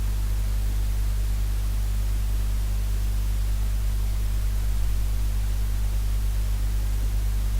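Steady low electrical hum under an even hiss, with no other sound.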